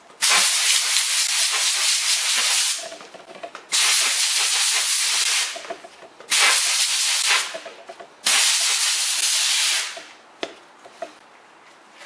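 Compressed-air blower gun blowing dust out of a shop vac's pleated paper filter from the inside out. It gives four loud hissing blasts, each one to three seconds long with short pauses between, then a single click about ten seconds in.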